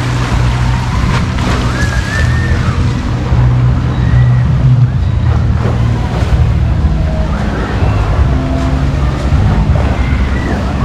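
Wave-pool ambience: churning water and a steady low hum, with scattered distant shouts of swimmers.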